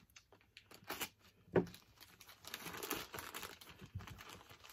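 Plastic wrapping crinkling and rustling as bagged comic books are handled, with a sharper knock about a second and a half in and a denser run of crinkling near the end.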